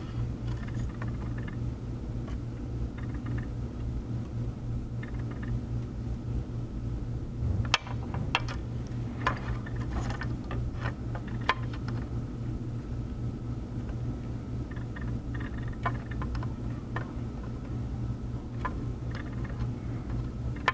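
A steady low machine hum from the workbench, with scattered small clicks and taps of the soldering iron and tweezers working on the circuit board, more of them in the second half.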